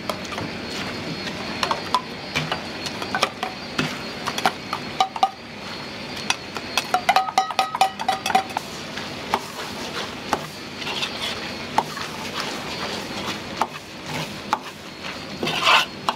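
Metal utensils clanking and scraping against woks and pans: many sharp clanks at irregular intervals over a steady background hiss, with a brief ringing tone near the middle.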